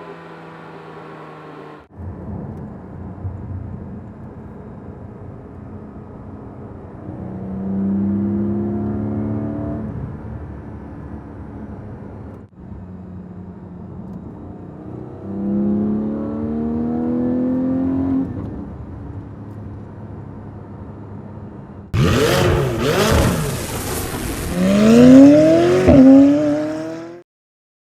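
2020 Porsche 718 Cayman GT4's 4.0-litre flat-six heard from inside the cabin, muffled, pulling up through the revs twice, each run ending in a drop at a shift. Near the end a louder, brighter section of the same engine, one of the two exhausts being compared, revving hard with rising pitch, a shift, and rising again before it cuts off.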